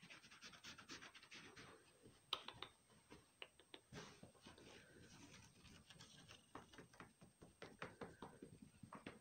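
Faint scratching and rustling on fabric, a dense run of quick scratchy clicks with one sharper, louder click about two seconds in.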